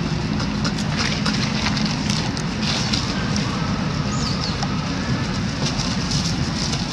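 Dry leaf litter crackling and rustling in many small clicks over a steady low outdoor rumble, with one faint short high squeak about four seconds in.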